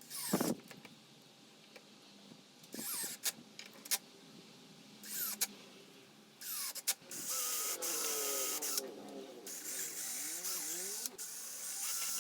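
Power drill running in several short bursts that speed up and wind down, then in longer runs through the second half, as when driving screws.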